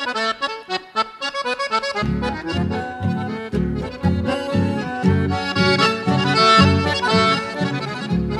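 Instrumental introduction of a chamamé played by a bandoneon-led quartet. The bandoneon plays a staccato melody alone, and about two seconds in a low accompaniment comes in with a steady beat of roughly two pulses a second.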